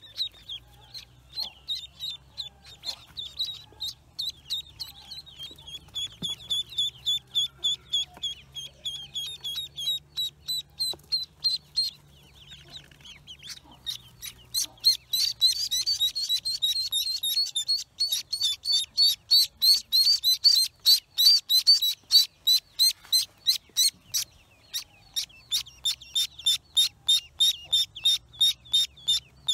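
Newly hatched ducklings peeping: short high-pitched calls repeated rapidly, about three or four a second, growing denser in the middle as several call at once.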